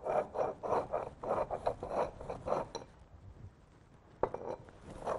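Black peppercorns and cumin being crushed with a pestle in a mortar: quick gritty pounding strokes, about four a second, that stop about three seconds in. One more knock follows a second later, and the pounding starts again near the end.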